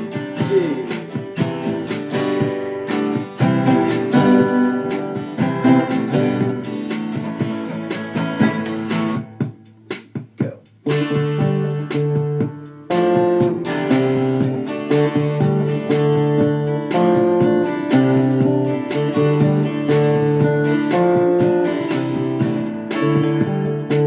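Steel-string acoustic guitar played solo, a run of picked notes with a brief pause about nine seconds in before the playing picks up again.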